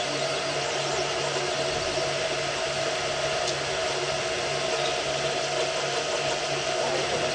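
Desktop 3D printer printing: the steady whir of its cooling fans over the hum and whine of the stepper motors, with a low hum that pulses in a regular rhythm as the print head moves.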